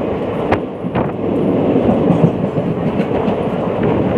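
Passenger train coach running along the track: a loud, steady rumble and rush with a couple of sharp wheel clicks about half a second and a second in.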